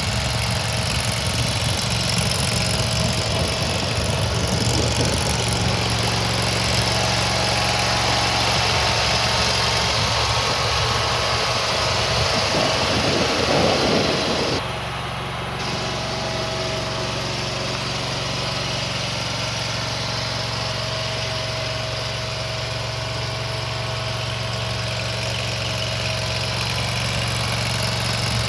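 Mini skid steer loader's engine running steadily with a low, even hum. About halfway through it swells louder and rougher for a couple of seconds, then drops back abruptly and runs a little quieter.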